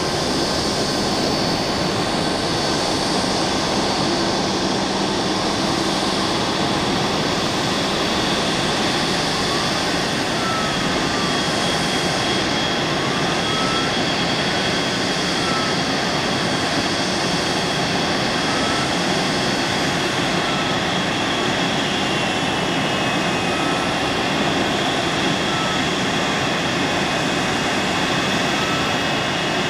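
Jet airliner taxiing, its turbofan engines giving a steady rushing noise with a thin high whine held over it.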